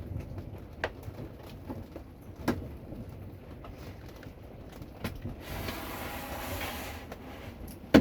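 Scattered hailstones striking at the end of a hailstorm over steady rain: a sharp knock every second or two, the loudest near the end, with a brief rushing noise for about a second and a half past the middle.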